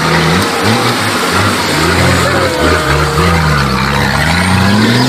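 Off-road buggy's engine revving hard under load as it climbs a muddy dirt slope, its pitch rising and falling and climbing again near the end, over a steady rushing noise.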